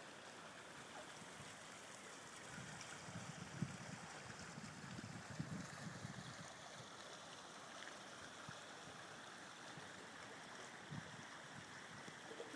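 Faint, steady rush of the flooded river's water flowing past, with a few soft low bumps and rumbles.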